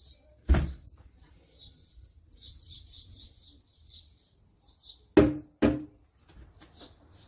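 Small birds chirping in short repeated notes, with a sharp knock about half a second in and two more knocks in quick succession about five seconds in.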